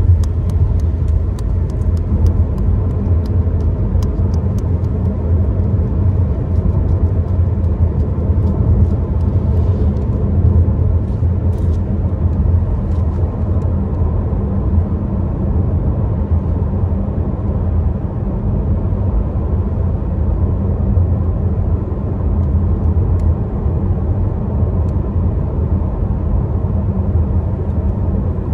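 Car cabin noise while driving: a steady low engine and road rumble at an even pace, with a few faint light clicks in the first few seconds.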